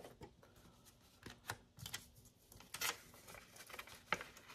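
A few faint, short rustles and light clicks of a paper dollar bill being picked up and handled.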